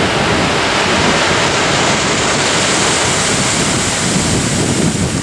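Ocean surf breaking and washing onto a sandy beach, a loud steady rush, with wind buffeting the microphone.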